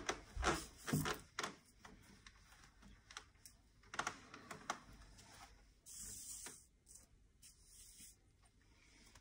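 Handling noise of a seated person turning sideways on a wooden chair: a few sharp knocks and clicks in the first second or so, then faint scattered ticks and rustles as a stethoscope is handled, with a soft brush of hiss about six seconds in.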